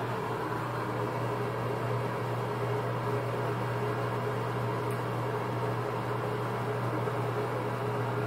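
Nutone ceiling exhaust fan running: a steady low hum with even airflow noise.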